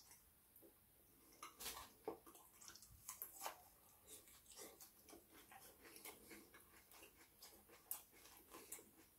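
A person chewing doner kebab meat and chips with the mouth open: faint, irregular wet smacks and clicks, starting about a second and a half in.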